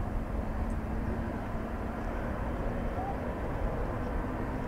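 Twin-engine turboprop airliner taxiing, its engines giving a steady drone over a broad rumble. A short rising chirp about three seconds in.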